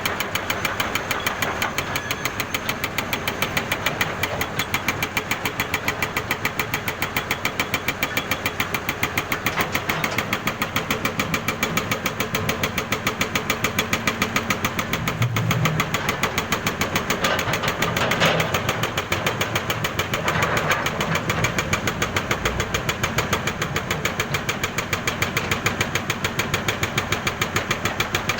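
Jackhammer hammering steadily: a continuous run of rapid, even blows.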